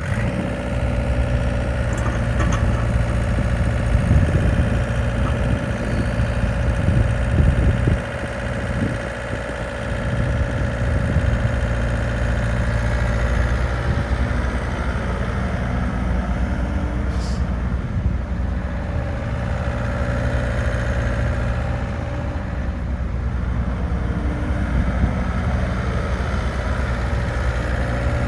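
Volvo EC60C midi excavator's diesel engine running, a steady low drone that is louder and rougher with some knocks for the first several seconds, then settles. A short high squeak comes just past the middle.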